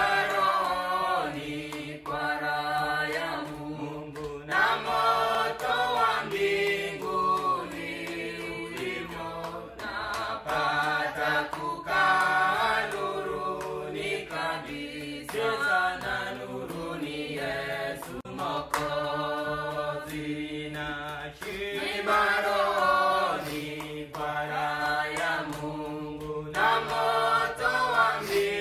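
A choir of voices singing in harmony, in phrases of held chords over a low sustained note.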